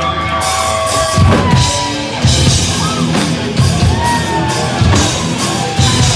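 Loud live heavy rock band: distorted guitars, bass and a drum kit, with heavy hits about once a second.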